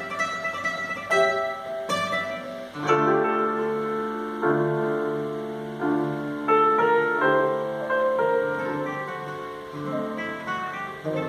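Classical guitar and grand piano playing together as a duo. It opens with quick plucked notes, and about three seconds in fuller chords enter whose notes ring on.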